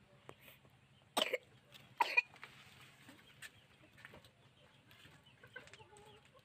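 Two short harsh cough-like sounds about a second apart, then faint clucking of chickens starting near the end over a low steady hum.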